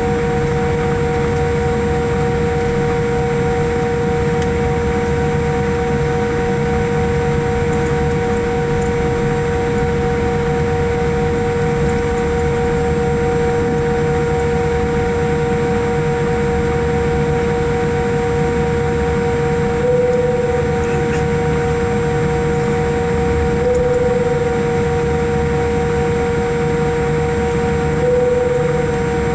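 Steady cabin noise of a Boeing 787-8 taxiing: a low rumble and hiss under a steady mid-pitched whine with fainter higher tones. The whine rises briefly in pitch and gets a little louder three times in the second half.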